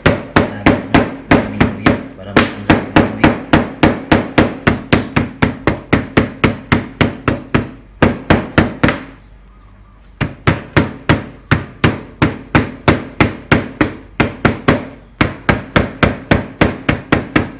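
A kitchen knife pounding fresh ginger on a plastic cutting board to crush it: fast, even knocks, about five a second, in runs of several seconds broken by short pauses about two, nine and fifteen seconds in.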